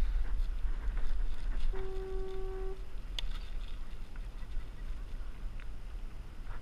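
Wind buffeting the microphone as a low steady rumble. About two seconds in, a single steady pitched tone lasts about a second, and a sharp click follows.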